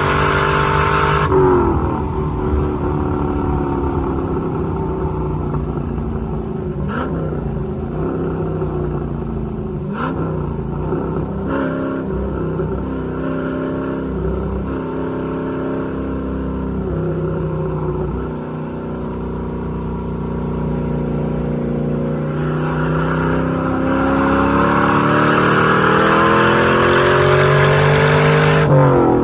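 1962 Chevrolet Corvette's 327 small-block V8 under way on a drive. The engine note drops about a second in, runs at moderate, wavering revs through the middle with a few faint knocks, then climbs and grows louder from about three-quarters of the way through before the pitch falls sharply at the very end.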